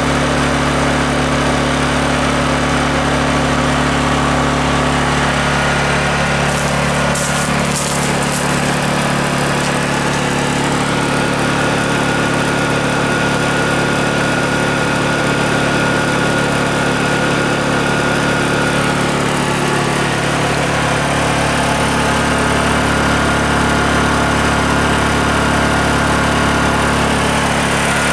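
Honda EU2000i inverter generator's single-cylinder four-stroke engine running steadily.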